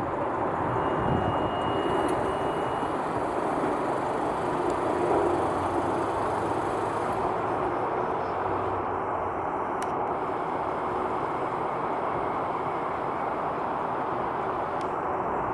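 Steady jet airliner engine noise, swelling slightly about five seconds in.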